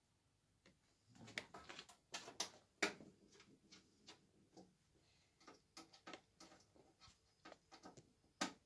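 Irregular small metal clicks and taps as screws are driven back into a coffee roaster's sheet-metal back panel with an Allen key. The loudest ticks come about three seconds in and near the end.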